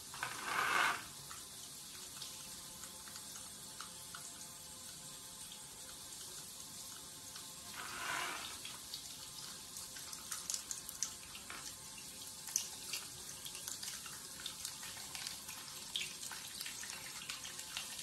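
Water spraying from a handheld shower head lying on a shower floor: a steady hiss with louder surges about a second in and around eight seconds, and small spattering ticks as a cat paws through the spray.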